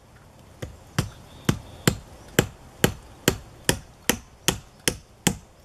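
Hammer blows on wood, a steady run of sharp strikes about two to three a second, beginning about half a second in.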